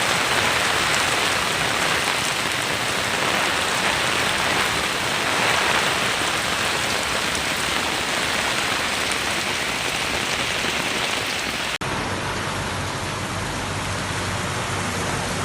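Heavy rain and rushing floodwater: a steady, even hiss during a flash flood. About twelve seconds in there is a brief break, and the same hiss carries on after it, slightly duller.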